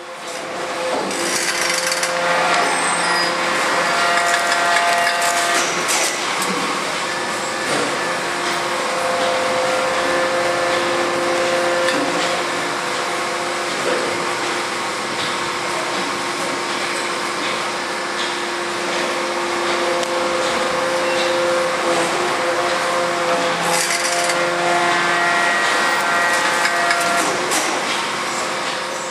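Lyndex Bigro baler running while compressing cans into a bale: a steady machine hum with several held tones that come and go, over continuous crackling and clanking of the cans being crushed.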